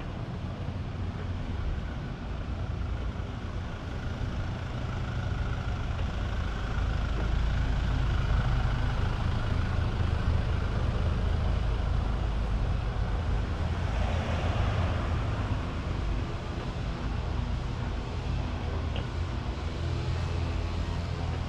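Road traffic on a city street: a steady low rumble of passing cars and buses that swells through the middle, with a short hiss about two-thirds of the way through.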